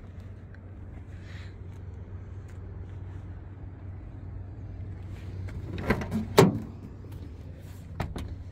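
A 2005 Ford Ranger's cab door being opened: a latch click and a clunk about six seconds in, with another click near the end, over a steady low rumble.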